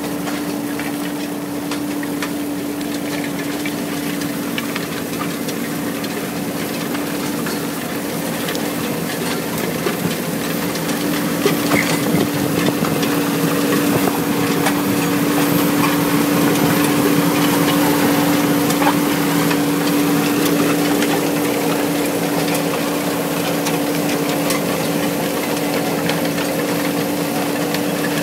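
Fendt tractor pulling a Sumo Trio cultivator with a pneumatic seeder through stubble at work: a steady engine and machinery hum over a continuous rush of soil and straw through the tines and packer roller, with a few faint knocks partway through.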